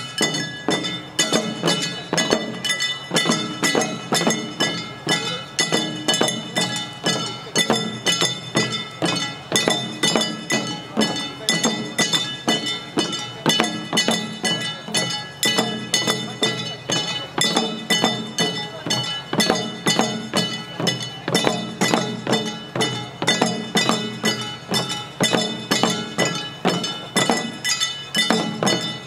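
Jangara nenbutsu odori accompaniment: hand-held kane gongs struck in a rapid, even beat of about three strikes a second, their metallic clang ringing over drum beats.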